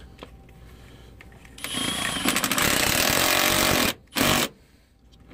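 Power tool running on a bolt with a rapid hammering rattle, in a burst of about two seconds starting near the middle, then a second short burst.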